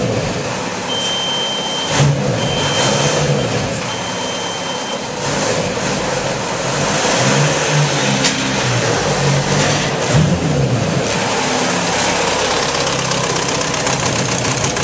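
Engine of the EVX GT's bare rolling chassis running and revving as the car is driven at low speed, its pitch rising and falling. A high steady tone sounds three times in the first five seconds.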